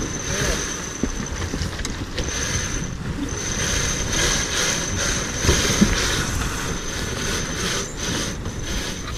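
Wind buffeting the microphone and water rushing past the hull of a J/111 racing sailboat under way, in a steady, pulsing wash. A thin, steady high whine runs through it, dropping out twice.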